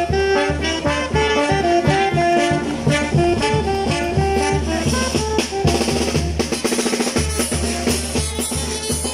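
Brass band music with a steady drum beat under a stepping horn melody; a little past halfway the bass beat drops out for a short run of quick drum strokes, then comes back.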